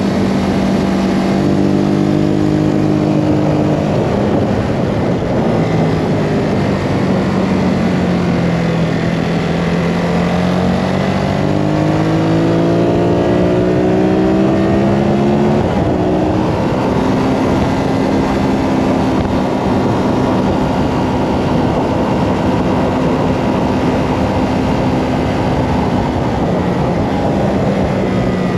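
Ducati Hypermotard 939's L-twin engine running at speed on track, under heavy wind rush. Its pitch falls for several seconds from about four seconds in, climbs again from about eleven seconds, steps at a gear change near sixteen seconds, then holds steady.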